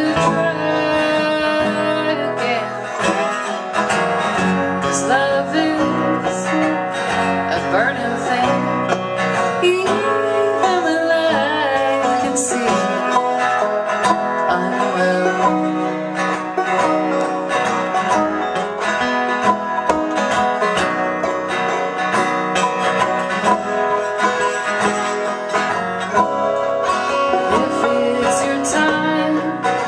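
Live trio performance of a song, led by plucked string instruments playing continuously, with a voice possibly woven in.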